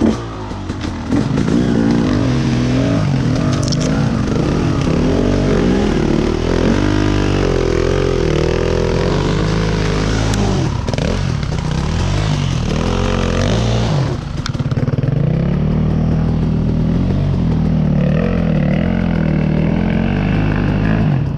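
Two-stroke dirt bike engine revving up and down under load, its pitch rising and falling over and over as it pulls through slick mud, then holding steadier about two-thirds of the way through.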